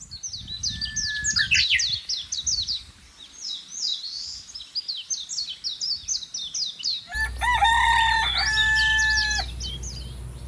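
Small birds chirping rapidly in quick falling notes. About seven seconds in, a rooster crows one long call over a low steady rumble.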